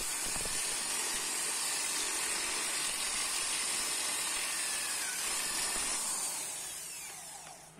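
Electric drill with a step drill bit boring out a hole in a stock Honda K-series fuel rail: the drill motor runs steadily as the bit cuts metal, then winds down near the end, its pitch falling as it slows.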